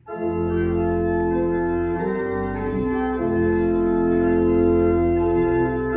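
Organ playing slow, sustained chords, starting suddenly at the beginning and moving to a new chord every second or two.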